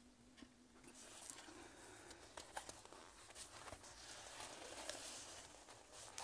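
Faint rustling and scattered soft clicks of a paperback book being handled and its pages turned.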